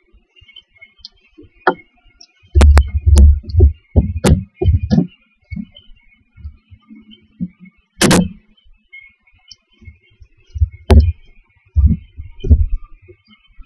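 Irregular thumps and knocks on the wooden floor and walls of a barn owl nest box as the owlets shuffle and one struggles to swallow a large gopher, with sharp clicks among them and one loud knock about eight seconds in.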